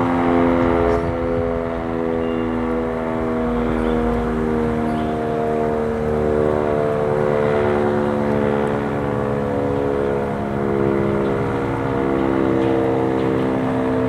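Sentry 10V outdoor warning siren sounding a steady alert tone, several pitches held together, its loudness swelling and dipping slightly every few seconds.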